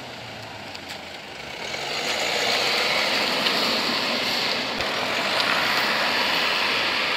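A car driving past, its engine and exhaust noise swelling about two seconds in and then holding loud and steady.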